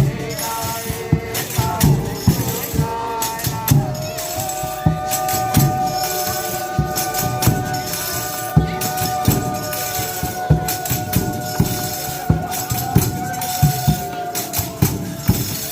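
Folia de Reis music: tambourines shaking and a drum beating a steady rhythm. A long high note, with overtones, is held from about four seconds in until near the end.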